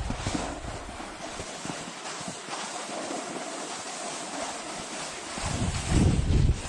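Skis hissing and scraping over packed, tracked snow during a downhill run. Low wind buffeting on the camera microphone comes in near the end.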